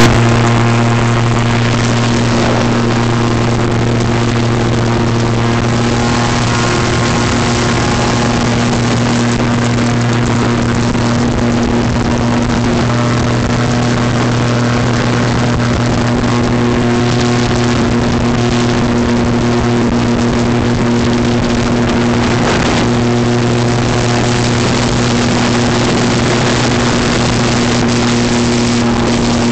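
Airboat's engine and caged propeller running steadily at speed, a loud constant drone with a deep hum.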